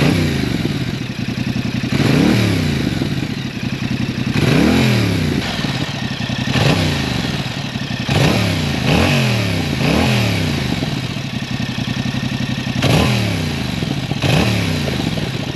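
2021 Yamaha MT-07's 689 cc parallel-twin engine through its stock exhaust, idling and blipped on the throttle about eight times, each rev rising quickly and dropping back to idle.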